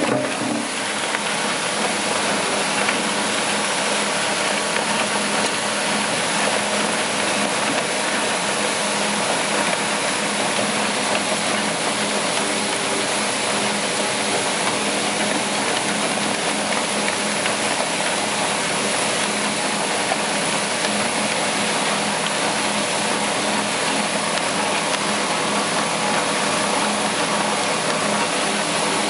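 Single-shaft shredder running under load, its rotor shredding a lump of waste material in the hopper: a loud, steady, dense mechanical noise with an even hum underneath.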